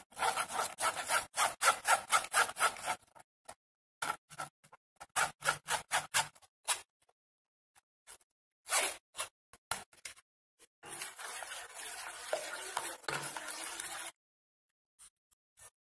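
A metal spoon scraping and pressing blended sweet-lime pulp against a stainless-steel mesh strainer. It goes in quick strokes, about four a second, then in short bursts with pauses, and turns into a steadier scraping for a few seconds near the end.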